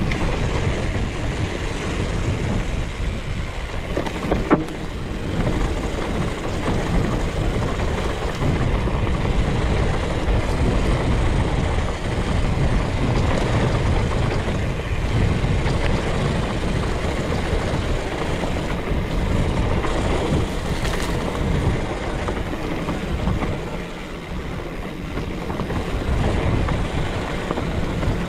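Wind rushing over an action camera's microphone and mountain bike tyres rolling fast over a dry dirt trail, with a sharp knock about four and a half seconds in.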